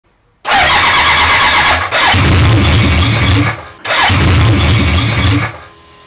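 1983 BMW K100's inline-four engine being started twice in a row. Each time a starter whine with a short falling tone gives way to the engine catching and running for a second or two, and each run cuts off abruptly.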